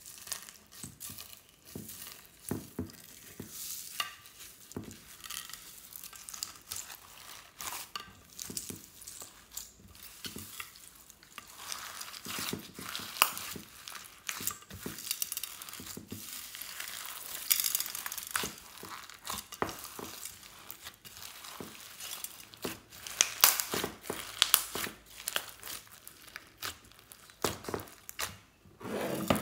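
Glossy slime loaded with foam beads, glitter, sequins and clay cubes being squeezed and kneaded by hand in a glass dish: a dense, irregular run of sticky crackles, pops and squishes.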